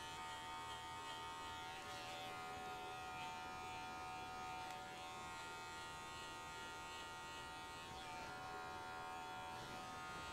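Electric dog-grooming clippers with a 40 blade running with a faint, steady buzz as they are worked back and forth with a light touch over a dog's flank.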